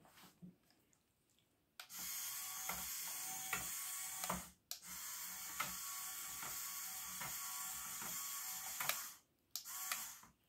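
Lego Technic walking robot's CADA L motor whirring through its 24-tooth gears, with clicking as the legs step on the wooden table. It runs for about two and a half seconds, stops briefly, and runs again for about four and a half seconds, then gives one short burst near the end.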